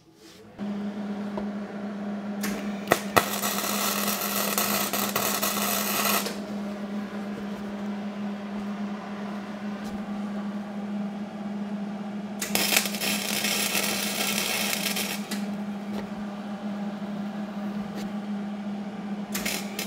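A Hobart Handler 190 MIG welder is switched on and hums steadily. Over the hum come two stretches of welding-arc crackle and hiss about three seconds each, and a short one near the end, as welds are laid onto a nut on a seized steel exhaust stud.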